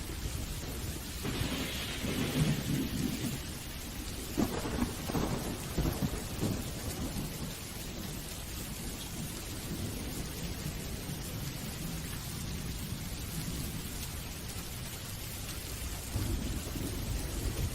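Steady rain with thunder: a rolling rumble with crackles in the first few seconds, and another low rumble near the end, over the even hiss of the rain.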